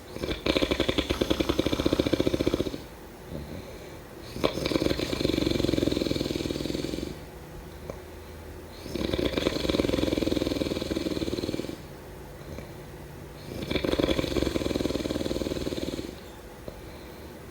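A person snoring: four long snores of about two and a half seconds each, with a fast flutter, coming roughly every four and a half seconds with quieter pauses between them.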